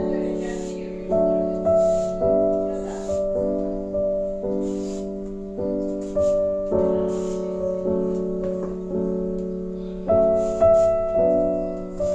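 Background piano music, notes and chords struck every half second to second and each fading away. Faint short scraping strokes of a vegetable peeler on an eggplant sit under it.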